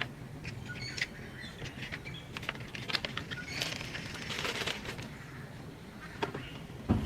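Light clicks, taps and rustling of containers and packaging being handled, with a longer rustle about four seconds in.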